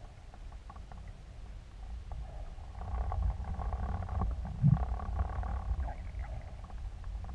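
Underwater noise picked up through a camera housing fixed to a speargun: a steady low rumble of moving water, with crackling that builds about three seconds in and a single dull knock just before five seconds.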